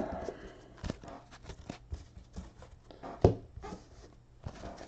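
Pokémon trading cards being handled and flipped through by hand: light slides and clicks, with a sharper tap about three seconds in.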